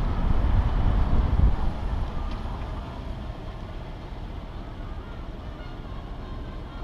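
A vehicle rolling slowly with a low rumble and wind on the microphone, which dies down about two seconds in as it comes to a stop; a steady, quieter vehicle hum carries on.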